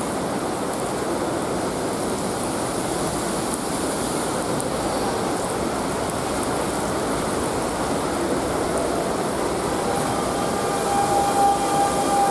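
Heavy cloudburst rain pouring steadily, with a train running through it. From about ten seconds in a steady high whine joins.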